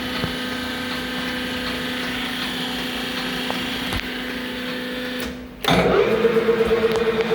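Leblond Makino 15x54 engine lathe running under power, a steady geared hum from the headstock. About five and a half seconds in the sound drops out briefly and comes back louder and pulsing, running in a different gear or speed.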